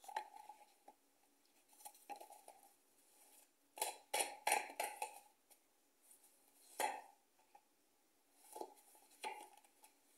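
A deck of cards being shuffled by hand: several short bouts of cards sliding and tapping against each other, the busiest a little after four seconds in.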